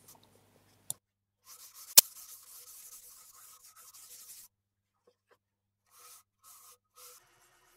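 Hand-held cloth rubbing over the finished surface of an ebonised ash bowl on a stopped lathe. The scratchy rubbing comes and goes in strokes, with a small click just before one second and a sharp click about two seconds in.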